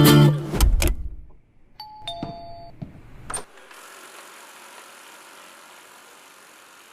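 Plucked-guitar music cuts off, then a short electronic chime of a few held tones sounds, like an appliance's beep. A click follows, then a faint steady whirring hiss.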